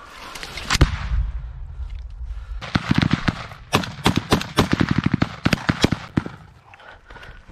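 Close rifle fire in a firefight. One loud shot comes under a second in, with a low rumble after it. Rapid strings of shots follow from about three seconds in through the middle, fired in quick succession.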